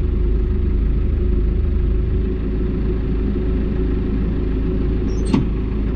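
Case 1090 tractor engine running steadily with the PTO engaged, driving the Hardy sprayer's pump. A single sharp click about five seconds in.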